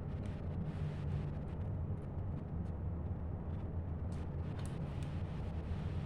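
Steady low hum, with a few faint light clicks from a drive being handled and pushed into a laptop's SATA bay, mostly in the second half.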